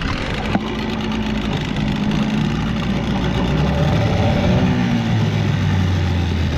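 Dinghy outboard motor catching and running in neutral, its pitch wavering and then settling lower; the motor has been acting up, though in neutral it seems to work all right.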